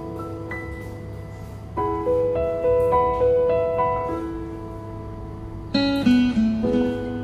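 Instrumental background music: a slow melody of held, plucked-string and keyboard-like notes, with a brighter cluster of notes about six seconds in.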